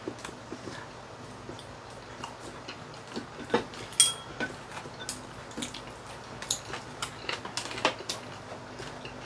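Eating at the table: chopsticks and spoons clicking and knocking against ceramic rice bowls, with chewing, as scattered light clicks. The loudest is a short ringing clink on a bowl about four seconds in.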